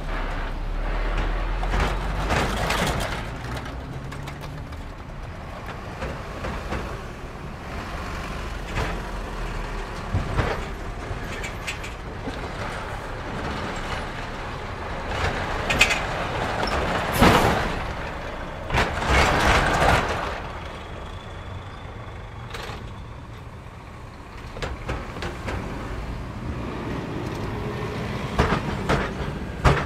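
Heavy trucks driving one after another over a railway level crossing: diesel engine rumble and tyre noise, with loud rattling and banging as wheels and trailers cross the rails. The loudest clatter comes about fifteen to twenty seconds in, with more near the end.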